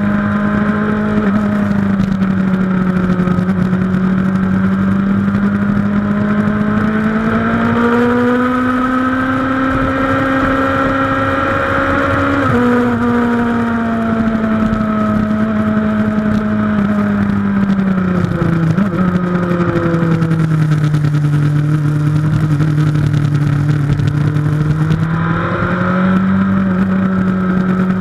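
Suzuki GSX-R1000 K2's inline-four engine at track speed, rising in revs to an upshift about twelve seconds in. It then falls off as the bike slows, stepping back up with a downshift near the end, over wind rush on the microphone.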